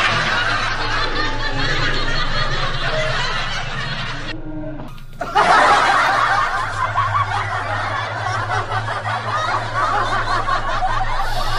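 Shrill cackling laughter of the kuntilanak ghost, breaking off about four and a half seconds in and starting again a second later, over a low steady hum.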